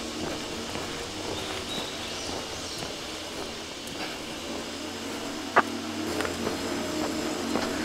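Outdoor ambience: a steady low background hum with a faint high bird chirp about two seconds in and a single sharp click a little past halfway.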